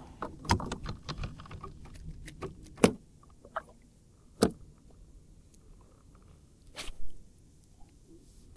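Clicks, knocks and rustling as a just-landed small fish and a spinning rod and reel are handled in a plastic kayak: a busy run of knocks in the first three seconds, the sharpest near three seconds in, then single clicks a second or more apart.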